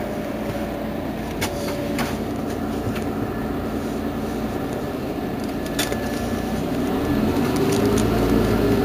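Mercedes-Benz Citaro G C2 articulated bus standing still with its engine idling, a steady hum with a few light ticks. It grows louder and deeper near the end.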